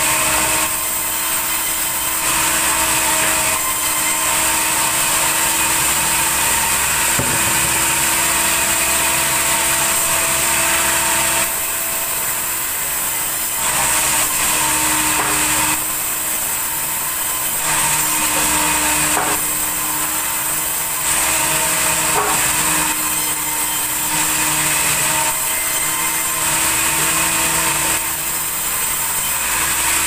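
Large sawmill band saw running steadily with a constant hum, its blade cutting planks of red timber; the hiss grows louder for stretches of a few seconds at a time as boards pass through the blade.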